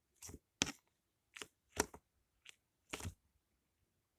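Six short, sharp crackling clicks spread unevenly across about four seconds: close handling noises.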